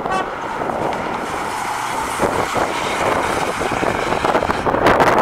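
1983 Oldsmobile 98 Regency with its 307 V8 driving away along the road, engine and tyre noise under wind rushing on the microphone, which grows louder near the end. The last of a short horn toot is heard at the very start.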